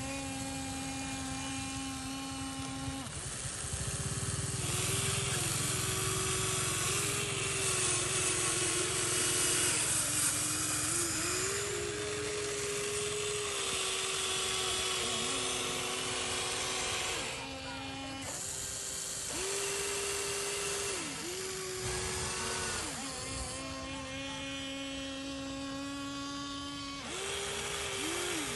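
Small electric motors of a radio-controlled model excavator whining as it digs, the pitch stepping and gliding up and down every few seconds as different functions start and stop.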